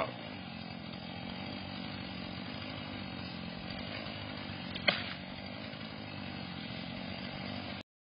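Chainsaw idling steadily, with a single sharp click about five seconds in; the sound cuts off just before the end.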